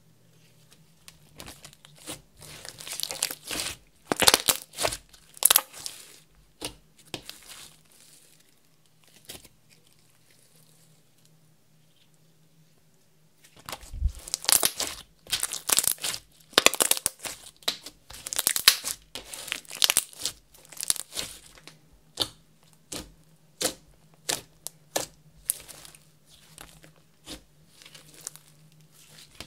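Glossy clear-based slime, mixed with makeup and glitter, stretched, folded and pressed by hand, giving bursts of sticky crackles and pops. A quiet stretch of several seconds comes near the middle, then denser crackling follows, thinning to separate pops near the end.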